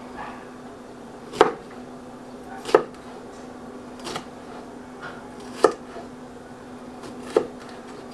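Knife slicing bell peppers on a cutting board: five sharp knocks of the blade against the board, one every second and a half or so.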